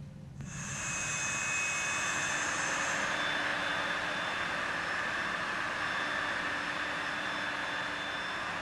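A vacuum cleaner switches on about half a second in and runs steadily with a high whine.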